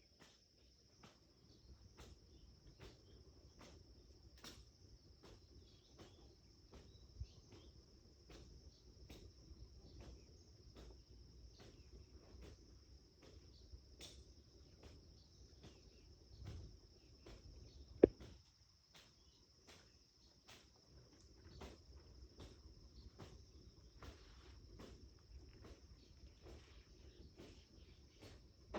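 Crickets chirring in a steady, faint, high-pitched trill, with soft ticks about twice a second and one sharp click about 18 seconds in.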